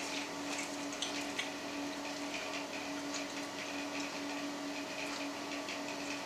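Steady low machine hum with a faint hiss, as of an appliance motor running in a small room, with a few faint clicks about a second in.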